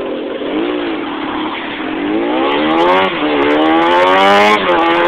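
Car engine accelerating hard from a traffic light, its pitch climbing through the gears and dropping at two upshifts, about three and four and a half seconds in, over road noise.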